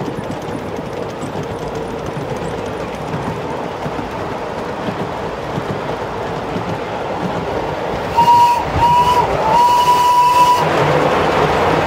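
Raised-track miniature railway train running, a steady rumble of wheels on rail. About eight seconds in, the locomotive's whistle gives two short blasts and one longer one. The running noise grows louder near the end as the train passes close beside a wall.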